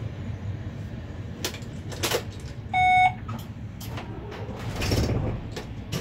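Container freight train rolling past, a low steady rumble heard from inside a vehicle's cab, with several sharp clicks and knocks. About three seconds in, a single short electronic beep is the loudest sound.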